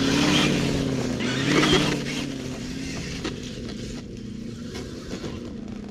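Electric motor and geared drivetrain of a Traxxas TRX-4 RC Bronco crawler whining, its pitch rising and falling with the throttle. In the first two seconds there are two loud bursts of scraping, which the driver puts down to the oversized left front tyre hitting the fender. After that the whine gets quieter as the truck drives away.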